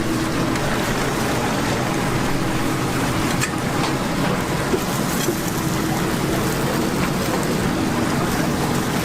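Chicken deep-frying in a large vat of hot oil, a steady sizzle with a few light clicks.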